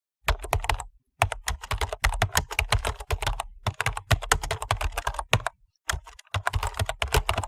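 Computer keyboard typing: fast runs of keystroke clicks, broken by a few brief pauses.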